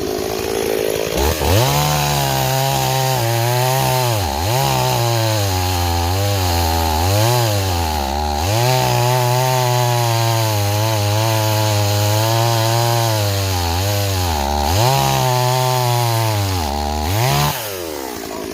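Stihl 026 two-stroke chainsaw cutting into a log at high revs, starting about a second in. The engine bogs down and recovers several times as the chain grabs, because its rakers have been filed too low. The owner also judges the carburettor to be set too rich.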